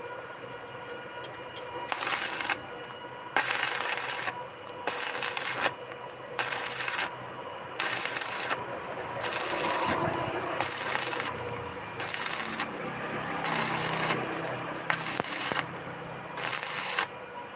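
Electric arc welding in short, evenly repeated bursts: the arc crackles and sizzles for under a second, stops, and strikes again about every one and a half seconds, as in stitch welding.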